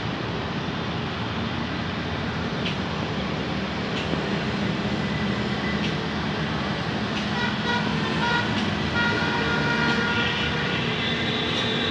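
Pakistan Railways diesel locomotives running light, a steady engine rumble as they pull away. Faint high steady tones come in from about seven seconds in.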